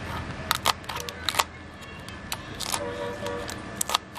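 Kitchen knife chopping green chillies on a wooden cutting board: a run of uneven, sharp taps as the blade strikes the wood.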